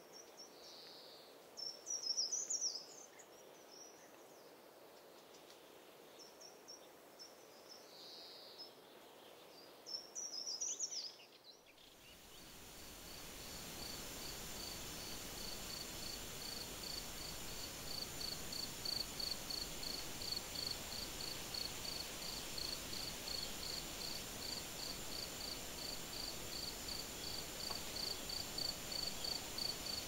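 Short bursts of bird chirping, twice, over a faint background; then about twelve seconds in the sound changes to a cricket chirping in an even, steady rhythm over a soft hiss.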